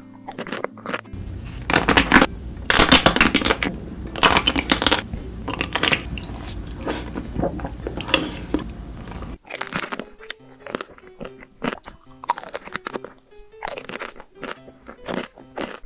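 Close-miked crunching bites and chewing of chocolate, many sharp crunches in quick succession, over background music. From about a second in until about nine seconds in, the crunches are louder and sit over a low hum, then the sound cuts back to quieter crunching.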